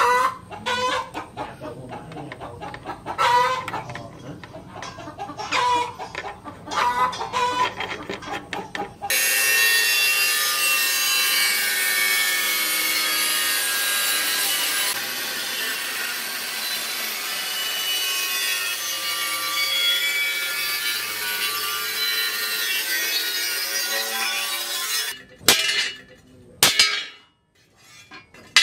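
An angle grinder cuts through the steel of a rusty tractor disc-plough blade: a loud, steady grinding with a whine, starting about a third of the way in and stopping shortly before the end. Before it, chickens cluck now and then. Near the end come two sharp hammer blows on the anvil.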